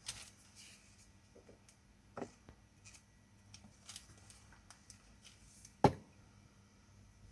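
A few light taps and clicks of painting tools being handled, with one sharper knock a little before six seconds in.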